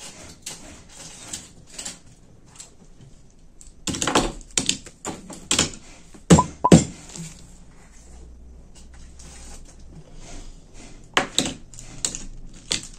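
Small die-cast toy cars being set down and moved on a plastic-covered tabletop: irregular clacks and knocks, in a few quick clusters.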